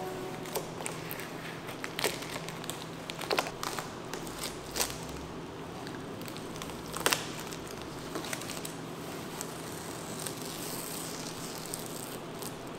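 Masking tape being peeled off a car's door and window trim and crumpled in the hand: scattered crinkles and crackles with a few sharper snaps, over a steady low hum.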